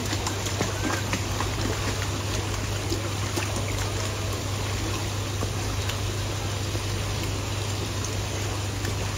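Running water at an animal exhibit, a steady even rush with a low hum underneath and a few faint ticks.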